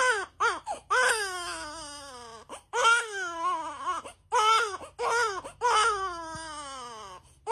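Infant crying: a few short cries, then long wails that slide down in pitch, with short breaths between them.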